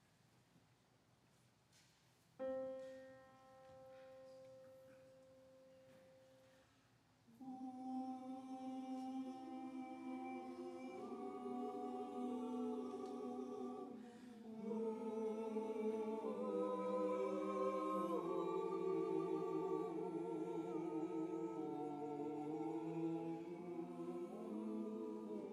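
Near quiet at first. A single steady note sounds about two seconds in and holds for roughly four seconds, giving the starting pitch. Then a church choir begins singing, several voices with vibrato moving in harmony.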